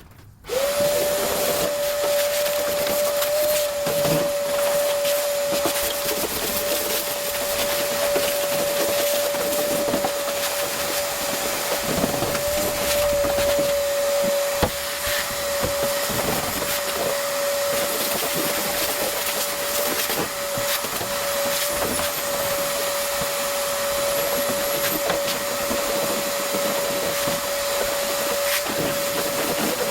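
Power sander running steadily at a constant high-pitched motor whine with a rushing hiss, sanding the rusted steel of a pickup bed. It switches on abruptly about half a second in.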